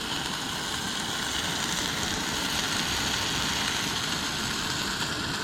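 Steady rushing noise of a vehicle on the move, road and engine noise heard without a break.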